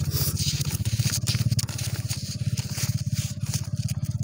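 A small engine idling steadily, a fast, even low throb that runs without a break.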